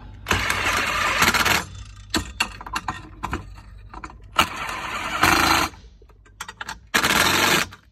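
Cordless impact driver run in three loud bursts, driving the golf cart controller bracket's bolts tight, with short clicks of handling between the bursts.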